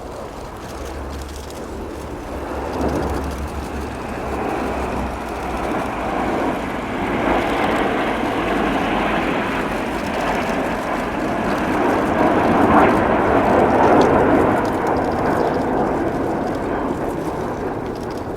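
Avro Vulcan B2's four Rolls-Royce Olympus turbojets, together with the Red Arrows' Hawk jets in close formation, passing by in a flypast. The jet noise builds steadily, is loudest about thirteen seconds in, then starts to fade.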